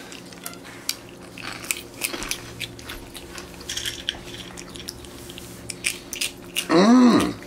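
Capuchin monkey eating corn puffs: a run of small, crisp crunches and clicks as it chews. Near the end a short voice sound rises and falls in pitch.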